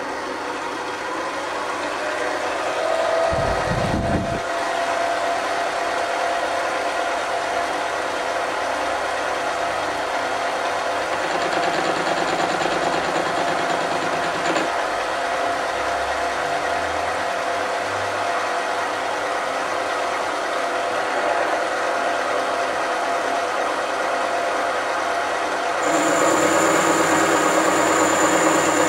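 Mini lathe running steadily, its motor and gears whining while a carbide-insert tool turns a cast iron cylinder-sleeve blank. A short dull thump comes about four seconds in, and the sound steps up louder near the end.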